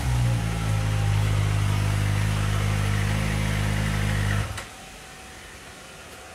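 Kawasaki Ninja ZX-25R's 250 cc inline-four engine idling steadily, then switched off about four and a half seconds in, cutting out suddenly.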